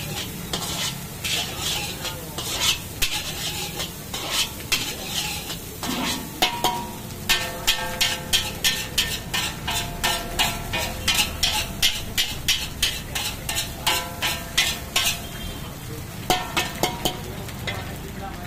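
Long steel spatula scraping and clanking against a large black iron wok as egg fried rice is stir-fried, with the rice sizzling underneath. The strokes come about two a second through the middle, many with a short metallic ring.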